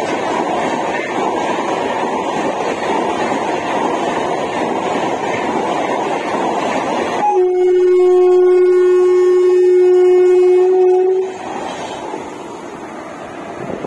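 Express train coaches rushing past at speed, with steady wheel-on-rail noise. About seven seconds in, a loud locomotive horn sounds one steady blast for about four seconds and cuts off, followed by quieter rumble from a train passing close.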